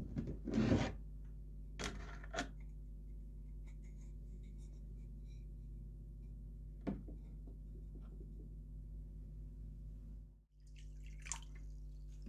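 Cuckoo clock weights being lowered into a plastic tub of water for an electrolysis bath: a few short splashes and drips, the biggest at the start and about two seconds in, a smaller one about seven seconds in. A steady low hum runs underneath.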